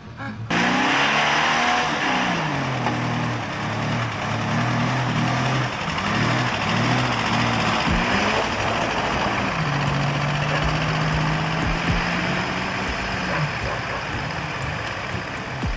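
A heavy machine's engine revving up and down again and again over a loud mechanical noise. It cuts in suddenly about half a second in, holds a steady pitch for a few seconds near the middle, then drops.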